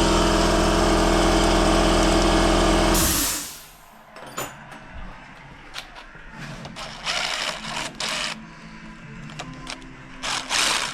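A steady motor hum cuts off about three seconds in. It is followed by scattered clicks, clinks and short rustling bursts of parts and tools being handled at the workbench, with a louder burst of noise near the end.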